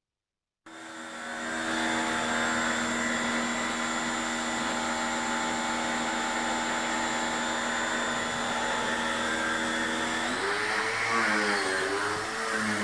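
An electric motor-driven machine switches on, spins up over about a second and runs steadily. Its pitch wavers and bends near the end, as if under changing load.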